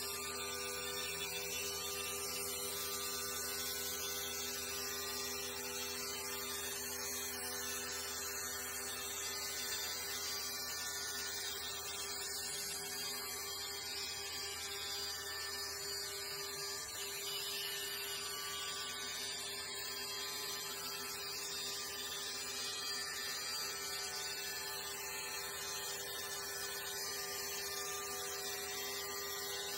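Mill spindle turning an 87 mm two-insert face mill across a board of hard desert ironwood, making a steady machining noise with a steady hum under it.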